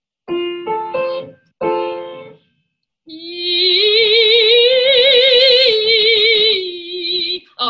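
Piano plays three rising notes and a chord as the starting pitch, then a soprano sings a vocal warm-up: a three-note arpeggio up and back down in her middle voice, held in one breath with steady vibrato.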